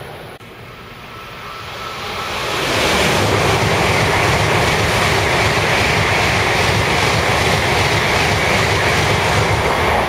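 Tokaido Shinkansen bullet train passing through the station at high speed without stopping. The rushing noise rises over the first two and a half seconds as it approaches, then holds loud and steady for about seven seconds while the cars go by.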